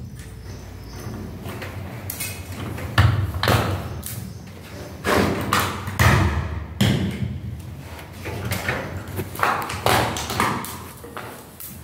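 Irregular thumps and knocks as an aluminium LED profile is pressed and tapped into place against a ceiling by hand. They start about three seconds in and come every half second to a second or so.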